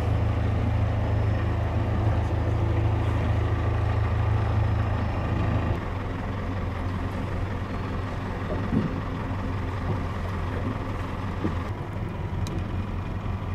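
Boat engine running steadily, a low hum heard from on board a boat, which changes in tone and drops a little in level about six seconds in and again near the end.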